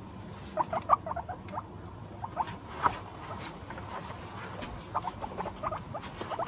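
Small animal squeaking: quick runs of short, high chirps, coming in clusters a few times.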